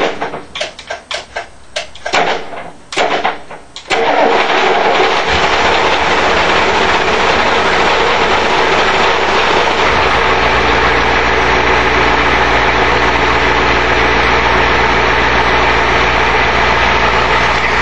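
1990 Ford F-250's naturally aspirated 7.3L IDI V8 diesel cranking in uneven bursts for about four seconds, its starter jumped with a screwdriver, then catching and running steadily on a cold start after sitting for over a month. The running sound gets a deeper rumble about ten seconds in.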